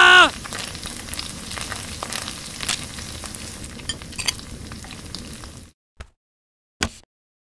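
Food sizzling and crackling as it fries in a pan, cutting off suddenly near the end; two short taps follow. The loudest sound is at the very start: a held tone that slides down in pitch and stops.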